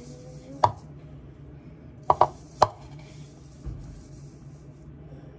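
Four sharp knocks of kitchenware against a pan or bowl: one about half a second in, a quick pair around two seconds in and another just after.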